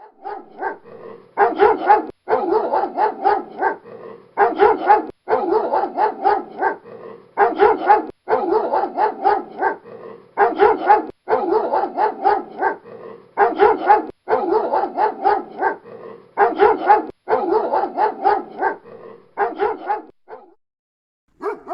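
Doberman barking in quick volleys of several barks, one volley about every second with short gaps between, until the barking stops about twenty seconds in.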